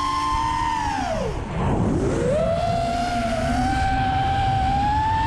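Racing quadcopter's brushless motors and propellers whining, over a low rush of wind noise. About a second in the whine drops sharply in pitch, then climbs back up and holds high.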